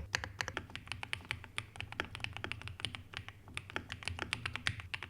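Fast typing on a Kiiboom mechanical keyboard: an uneven, rapid run of key clicks, many strokes a second, without a break.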